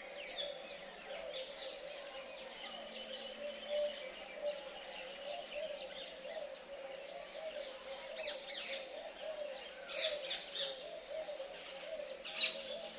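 Birds calling: sharp chirps every few seconds, loudest about a third of the way in and near the end, over a continuous wavering chorus of lower-pitched calls.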